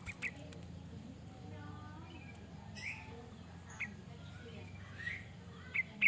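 Sooty-headed bulbul (kutilang) giving short sharp chirps, two at the start, then one every second or so and a quick pair near the end, over a low steady background hum.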